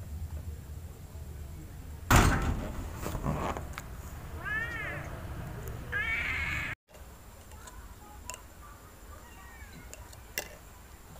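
A loud thump about two seconds in, then a kitten meowing twice, short high meows a second and a half apart.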